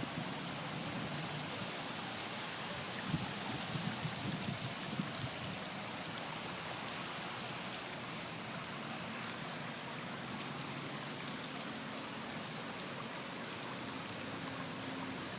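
Floodwater running fast across the ground like a small river, a steady rushing hiss of moving water, with a few soft low knocks about three to five seconds in.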